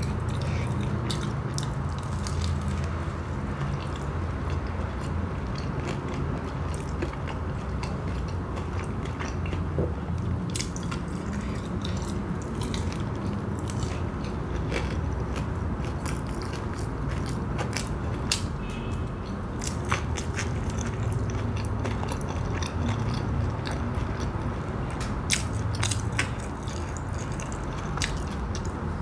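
Close-miked chewing of a crumb-coated fried snack, with many small wet clicks and light crunches of the crust against a steady low mouth sound.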